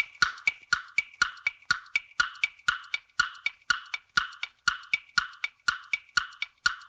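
Quiz countdown-timer sound effect: a steady, wood-block-like tick-tock at about four ticks a second.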